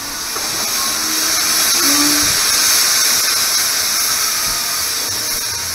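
Steady high hiss of steam from a standing Austerity 0-6-0 saddle tank steam locomotive, swelling over the first couple of seconds and easing off slightly toward the end.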